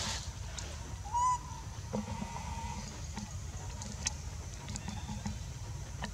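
An animal's short call about a second in, rising then falling in pitch. A fainter, drawn-out call follows, over a steady low rumble.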